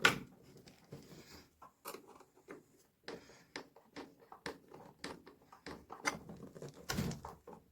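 Hands working a rubber hose off a washing machine tub: irregular clicks, rubbing and scraping of rubber on plastic, with a sharp knock at the start and another loud clatter about seven seconds in.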